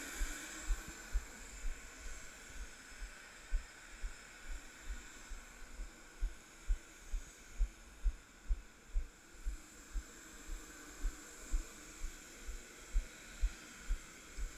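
Footsteps on apron concrete, felt as dull low thumps about twice a second through a body-worn camera, over a steady high hiss from the aircraft and ramp.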